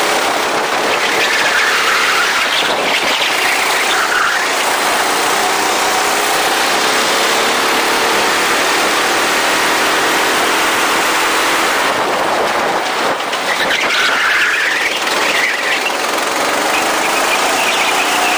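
Go-kart engines running at speed, their pitch rising and falling with the revs, over a steady rush of noise. A higher squeal comes twice, once a couple of seconds in and again near the end, typical of kart tyres scrubbing through corners.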